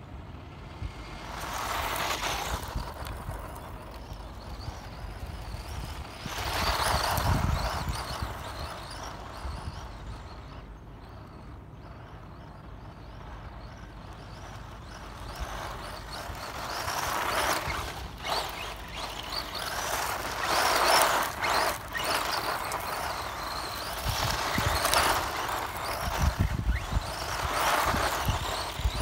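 Tamiya Super Avante 4WD RC buggy with a brushed electric motor, re-geared to a higher ratio, running and power-sliding on loose dirt. Its motor whine and the hiss of tyres spraying gravel swell and fade as it makes several passes. The sound is loudest in a cluster of passes over the last third, and near the end the buggy slides close by, throwing stones.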